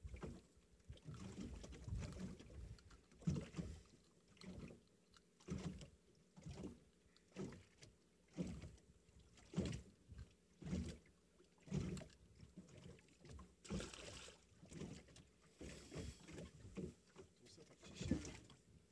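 Small waves slapping against the hull of a small boat in short, irregular splashes about once a second.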